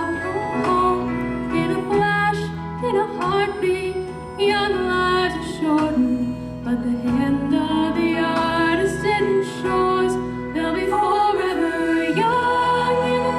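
A song: a singing voice carrying a melody in long held notes over steady instrumental accompaniment.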